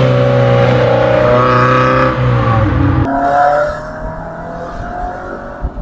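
MG TF's four-cylinder engine and exhaust under load as the car drives along the road, loud at first with the pitch dipping about two seconds in. About three seconds in it cuts to a quieter, steady engine drone heard from inside the open-top car.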